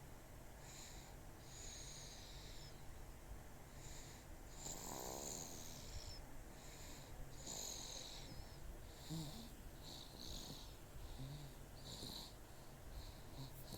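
A seven-month-old baby snoring softly in her sleep, a faint snore with each breath, roughly once a second.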